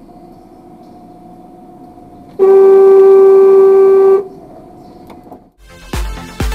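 Car horn sounding one steady blast of a little under two seconds, over low steady driving noise. Near the end, electronic dance music with a heavy beat starts.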